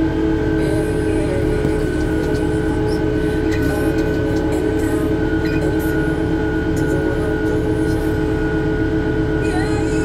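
Cat 908H2 compact wheel loader running steadily under load while plowing snow, heard from inside its cab: a low diesel drone with several steady whining tones over it.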